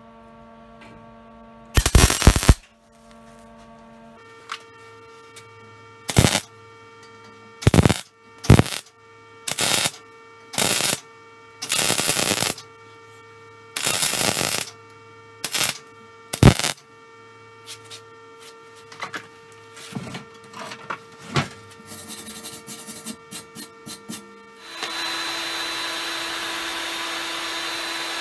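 Electric arc welder laying a series of short welds on a steel tube frame, about a dozen separate bursts of crackling arc, each under a second to a second long, with a faint steady hum between them. Near the end a heat gun starts blowing steadily.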